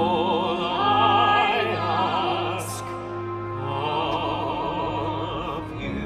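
Orchestral musical-theatre music with an operatic voice holding long notes with wide vibrato, loudest about a second in.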